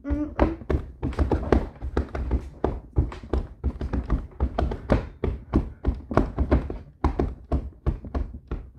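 Rapid, irregular knocking and thunking, several strikes a second, on a hard surface.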